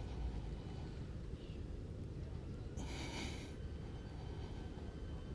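A single forceful exhale from a man holding a plank, a short breathy hiss about three seconds in, part of a slow breathing rhythm under strain. A steady low wind rumble sits on the clip-on microphone throughout.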